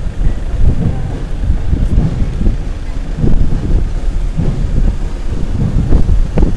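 Volkswagen fire truck's diesel engine running in a low, uneven rumble as the truck rolls slowly past.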